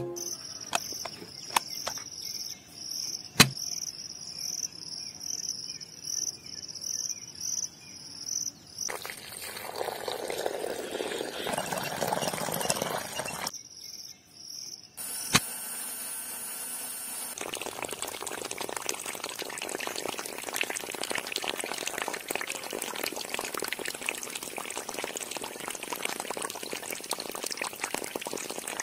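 A small DC-motor water pump on a toy tractor sending a steady stream of water out of its clear hose, pouring and splashing, through roughly the second half. Before that come sharp clicks as the small parts are handled and fitted, under a high chirp that pulses evenly, two or three times a second.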